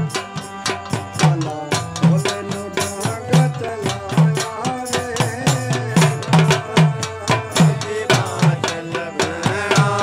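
Instrumental passage of Indian devotional folk music: a keyboard holds steady chords while a dholak keeps a regular beat with a deep stroke about twice a second, under sharp rattling percussion.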